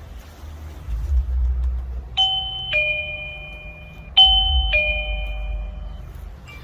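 Doorbell chime sounding a two-note ding-dong, a higher note falling to a lower one, rung twice about two seconds apart, each note ringing out. A low rumble runs underneath.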